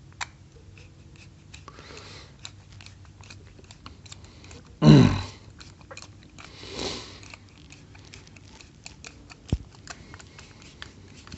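Small irregular clicks and scrapes as a screwdriver turns the spring-loaded idle speed screw into a Honda EG1400 generator's carburetor and the carburetor body is handled. A brief louder noise comes about five seconds in, and a softer rush of noise shortly after.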